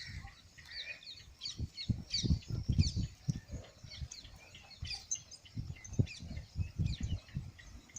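Small birds chirping, many short high chirps in quick succession, over irregular low thuds.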